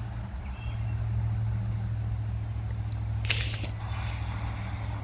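A steady low mechanical hum, with a short burst of hiss a little over three seconds in.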